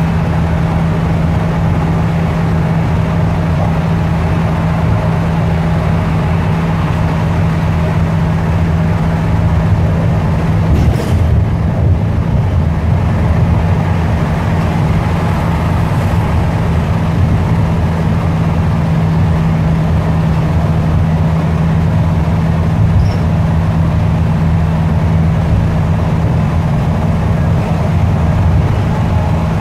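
Bus interior at highway speed: the engine's steady low drone with road noise from the tyres on wet pavement, and one brief knock about eleven seconds in.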